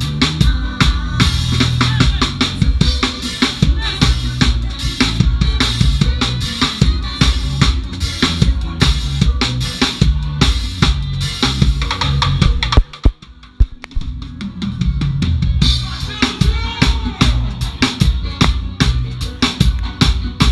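Drum kit played live with a band, with a busy groove of kick drum, snare and cymbals over steady bass. About 13 seconds in, the band cuts out for roughly a second, with a couple of sharp hits in the gap, then the groove comes back in.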